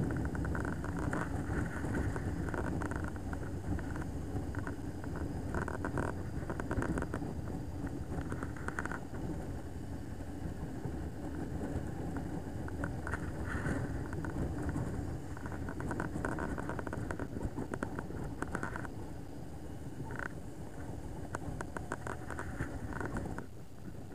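Motorcycle on the move, heard from a bike-mounted camera: a steady engine and road rumble mixed with wind noise. It drops a little in level near the end.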